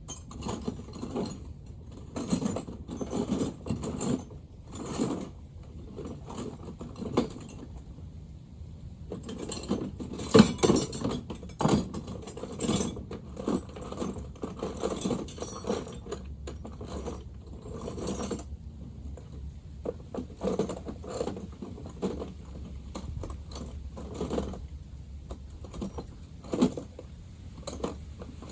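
Metal hand tools and small metal parts clinking and rattling in irregular bursts, with scattered sharper clanks, the loudest about ten seconds in. This is typical of rummaging for a small tool and working it against the engine parts.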